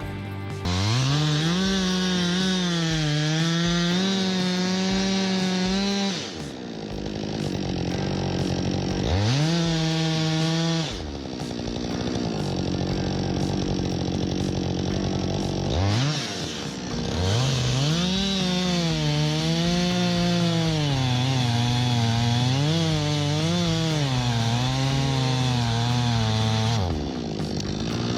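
Two-stroke chainsaw revving to full throttle three times, dropping back toward idle in between. During the longer runs its pitch repeatedly sags and recovers as the chain bites into the wood, which is the sound of a saw under cutting load.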